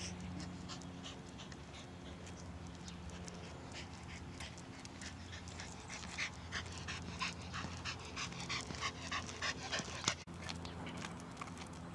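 Dog panting as it walks, quick breaths about three a second that grow louder from about halfway through. A single sharp knock near the end.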